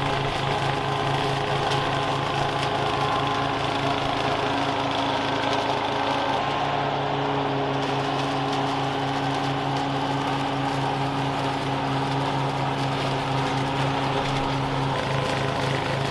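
Toro TimeMaster 30-inch walk-behind mower's engine running steadily as the mower is pushed through dry fallen leaves, cutting and bagging them, with an even pulsing hum.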